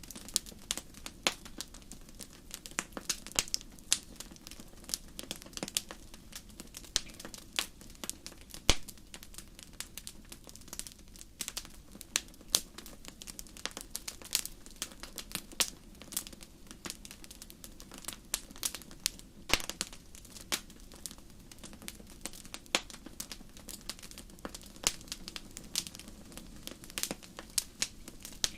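Wood fire crackling, with dense, irregular sharp pops and snaps over a low hiss.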